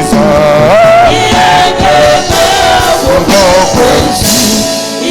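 Gospel worship singing with a live band: a lead voice and congregation singing a praise chorus over a steady beat.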